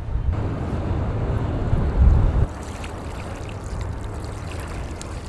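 Wind buffeting the microphone: a heavy low rumble with a strong gust about two seconds in that drops off suddenly half a second later, leaving a weaker rush.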